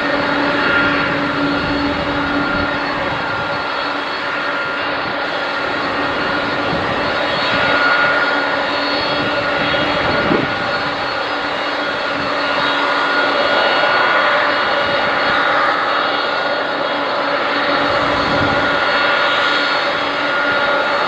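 Boeing 737-400 freighter's CFM56-3 turbofan engines during touchdown and the landing roll: a steady jet whine with several held tones over a dense rush. It swells louder about a third of the way in and again about two-thirds of the way in.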